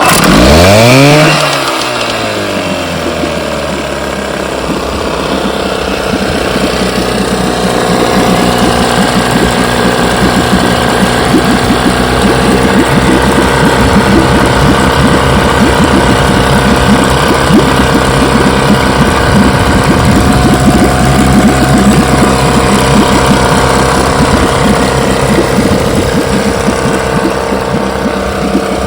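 Freshly restored 1969 Evinrude 6 HP two-stroke twin outboard starting in a test barrel. It catches at once, revs up and drops back over the first couple of seconds, then runs steadily.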